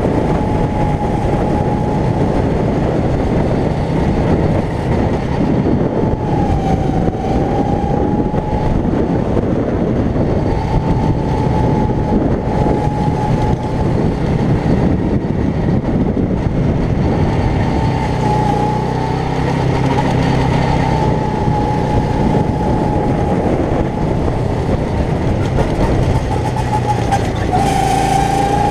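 A go-kart's small engine running steadily under way, heard from the driver's seat. Its pitch dips briefly a few times, about six seconds in, again around nineteen seconds and near the end.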